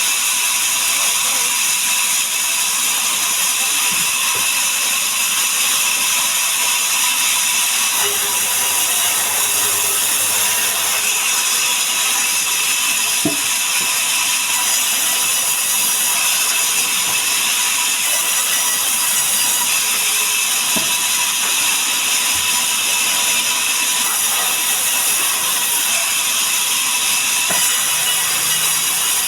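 Sawmill saw running steadily while cutting mahogany logs, a continuous high-pitched mechanical noise with a steady tone through it.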